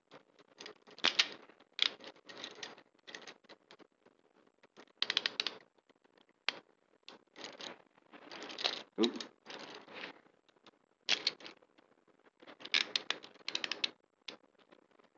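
Handcuffs being put on and ratcheted shut: irregular bursts of rapid metallic clicking, mixed with clothing rustling close to a body-worn camera.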